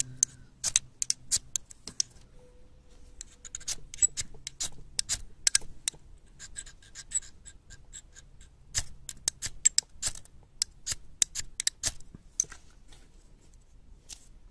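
Bear Grylls ferrocerium fire starter being struck with its metal striker: repeated sharp rasping scrapes in quick runs with short pauses, throwing sparks into a cramp ball fungus to catch an ember.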